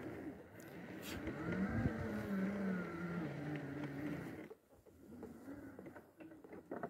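Electric drive motors of a power wheelchair whining as it drives over a forest dirt track, the pitch sliding up and down with speed. The motors stop about four and a half seconds in, leaving a few light clicks and rustles.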